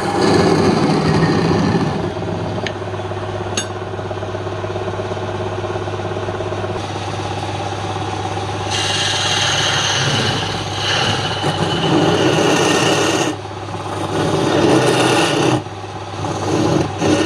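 Wood lathe running with a steady low hum while a tool scrapes and rasps against the spinning wood. The rasping swells and eases, and breaks off briefly twice near the end.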